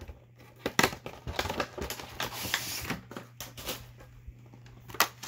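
Irregular sharp clicks and taps with a brief crinkly rustle of plastic packaging being handled, over a low steady hum.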